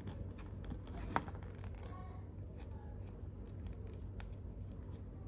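Light clicks and rustles of small plastic pieces being handled as tiny sunglasses are fitted onto a plastic L.O.L. Surprise doll, with one sharper click about a second in. A low steady hum underneath.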